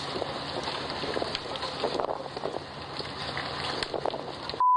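Storm wind and rain on a phone's microphone: a steady rushing hiss with small scattered crackles. A loud steady high-pitched beep cuts in just before the end.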